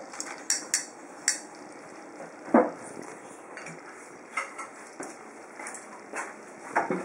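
Tableware clinking at a hot pot meal: scattered light clicks and taps of utensils against dishes and the metal pot, with one louder knock about two and a half seconds in.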